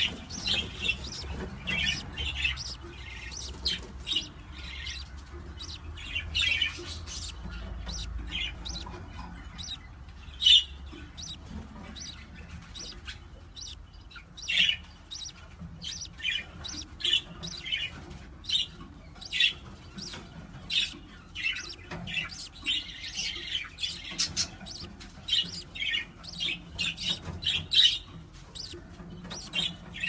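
Budgerigars chirping: a quick, irregular string of short, high chirps, over a low rumble that is strongest in the first ten seconds.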